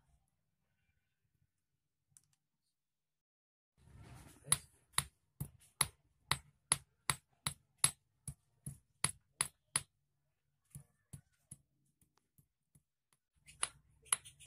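Small hammer striking steel hook wire on the head of a large hex-head steel bolt used as an anvil: a run of sharp metallic taps with a high ring, about three a second, starting about four seconds in, then a few lighter taps and more strikes near the end.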